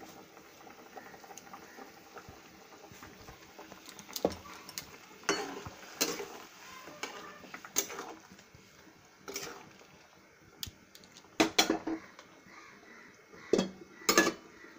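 A metal utensil knocking and scraping against a metal pan while chicken in sauce is stirred: irregular sharp clinks spread through, with a few louder clanks near the end as a metal lid goes onto the pan.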